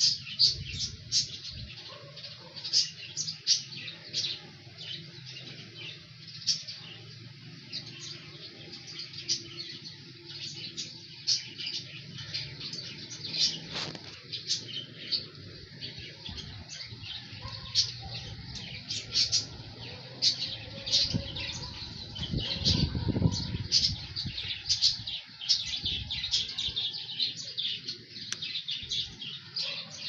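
Birds chirping over and over in short, high-pitched chirps, with a brief low rumble a little after two-thirds of the way through.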